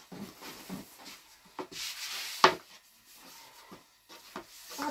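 Long thin wooden rolling pin rolling out a thin sheet of flatbread dough on a wooden board, in soft repeated rubbing strokes. A short hiss follows, then a sharp knock about two and a half seconds in.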